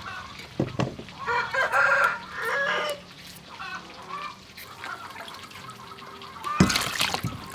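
A rooster crowing, one long call of about two seconds starting a little over a second in. Near the end, water splashes in a metal bowl.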